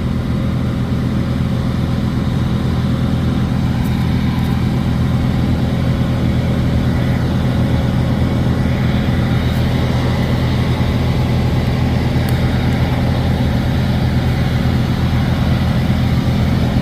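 Semi-truck diesel engine idling steadily, a low, even hum.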